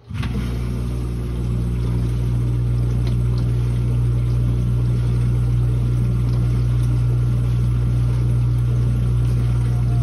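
Dishwasher wash pump kicking in suddenly, then running as a loud, steady low hum with water churning and spraying inside the tub.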